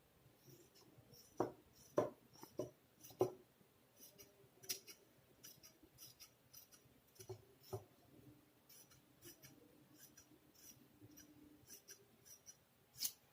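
Scissors cutting through cloth to trim off the excess fabric above a fresh seam: a run of irregular short snips and clicks.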